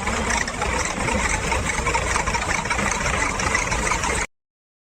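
Vehicle engine idling steadily, cutting off abruptly about four seconds in.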